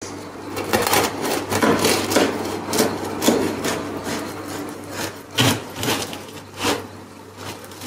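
Long kitchen knife sawing through the crisp crust of a baked focaccia on a wooden cutting board: repeated crunchy scraping strokes, a couple a second, growing sparser and quieter in the second half.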